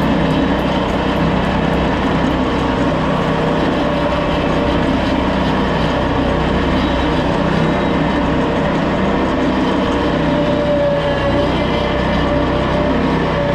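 Engine running at a steady speed, a constant loud drone with several fixed tones and no change in pitch.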